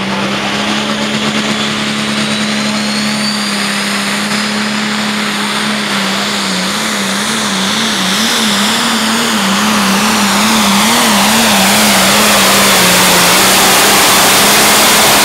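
Limited pro stock pulling tractor's turbocharged diesel engine at full throttle under load as it pulls the sled, with a rising turbocharger whine. The engine note wavers up and down for several seconds midway, and the sound grows louder toward the end.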